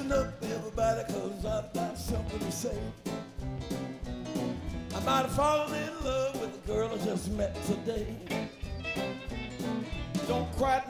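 Live country-blues band playing an instrumental passage, a fiddle carrying a wavering lead melody over drums, bass and electric guitar keeping a steady beat.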